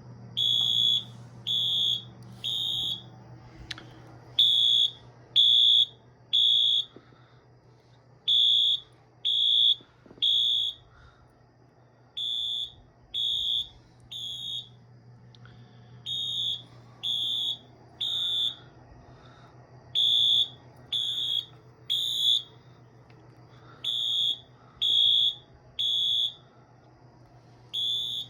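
Wheelock AS24MCW electronic fire-alarm horn sounding the temporal code-3 evacuation pattern: three high-pitched beeps, then a pause, repeated about seven times. It was set off by a System Sensor 2400 smoke detector's test button, showing that the detector works. A faint low steady hum runs underneath.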